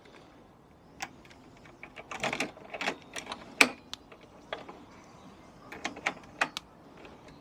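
Ignition key being fitted into a scooter's ignition switch: a string of irregular small clicks and rattles of key and handling.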